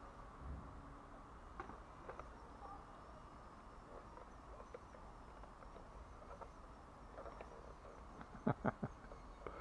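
HBX 2098B Devastator mini RC crawler driving across brick paving, its small electric motor and gears giving a faint high whine. Scattered light clicks, and a quick run of three or four sharp clicks near the end.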